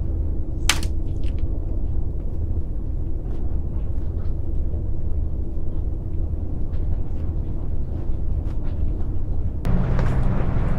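Wind rumbling on the microphone, a steady low noise, with one sharp click about a second in. Near the end the noise gets louder and fuller.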